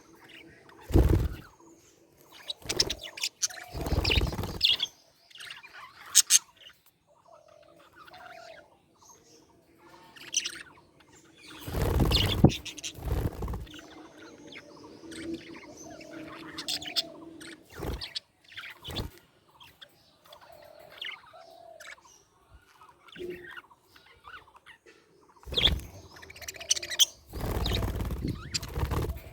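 Budgerigars chirping and twittering in quick, short calls, broken by a few louder bursts of noise.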